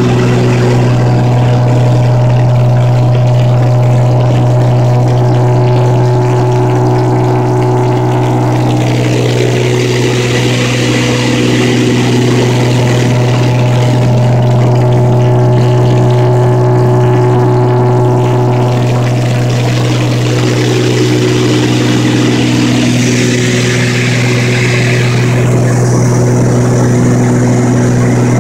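Twin piston-engine propeller aircraft running steadily, a loud low drone with a strong hum and higher tones that shift slightly in pitch now and then.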